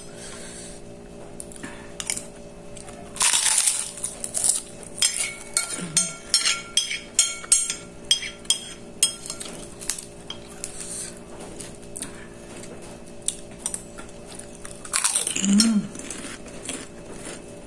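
Metal spoon clinking and scraping on a ceramic plate in many quick, irregular clicks, with a couple of louder crunches from a krupuk cracker being broken and eaten.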